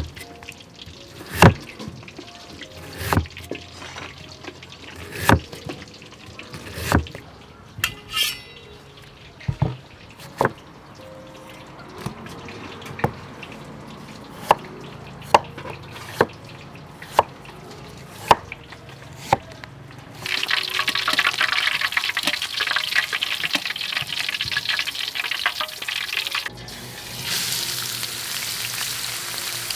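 A cleaver chopping through beetroot onto a wooden cutting board, one sharp chop about every second, then shredded ginger frying in a metal wok, a steady dense sizzle starting about two-thirds of the way in.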